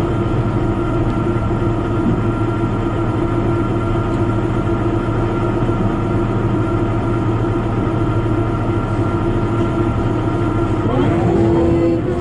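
Cabin noise of a JR Kyushu KiHa 72 diesel railcar under way: a steady diesel engine hum over the running rumble, with the engine note rising in pitch about eleven seconds in and holding at the higher pitch.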